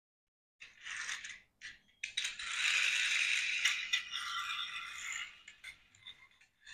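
Friction motors of small die-cast metal toy tractors whirring as they are pushed and run along a hard floor: two short spurts, then a longer run of about three seconds with a couple of sharp clicks, dying away near the end.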